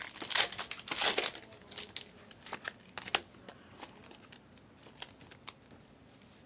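Foil trading-card pack wrapper crinkling as it is handled, loudest in the first second and a half, followed by scattered light clicks and ticks from the cards being handled.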